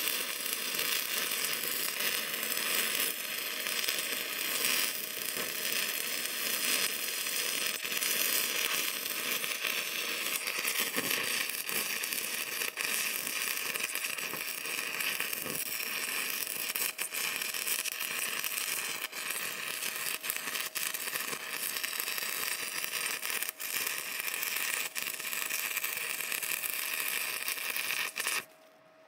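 Stick-welding arc running steadily as an electrode is burned along a steel hitch bar, with a few brief dips; the arc cuts off abruptly near the end.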